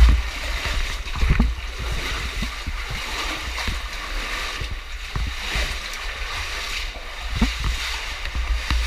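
Water splashing and sloshing as a caver moves through a flooded cave passage, with irregular knocks and low thumps.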